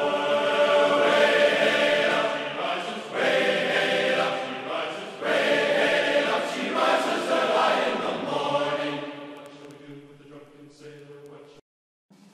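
Background music of a choir chanting in long held notes. It fades out over the last few seconds and breaks off into silence just before the end.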